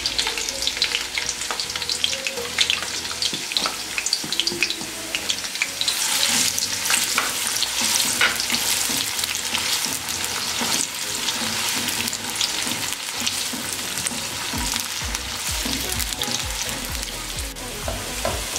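Sliced onions frying in hot oil in a karahi (wok), sizzling and crackling steadily as they are stirred with a silicone spatula and brought toward golden brown. The crackling grows denser about six seconds in.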